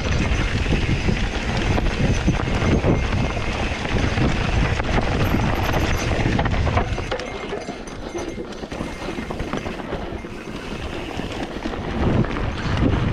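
Mountain bike riding down a rocky dirt singletrack: tyres crunching over dirt and loose stones and the bike rattling over the bumps, with wind rumbling on the camera microphone. The low rumble eases about seven seconds in and comes back near the end.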